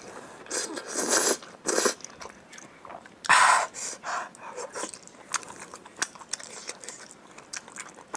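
Close-miked mukbang eating of saucy fire noodles and a sauce-coated piece of meat. A few loud wet slurping and biting bursts come in the first half, the loudest about three seconds in. Then comes wet chewing with many small smacking clicks.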